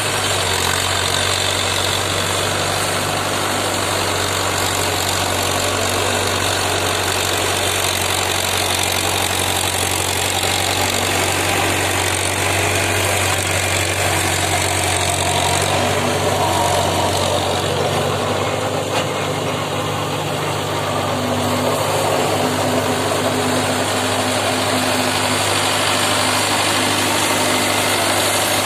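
Mahindra Yuvo 415 DI tractor's diesel engine running steadily under load, driving a rotavator that churns through hard soil.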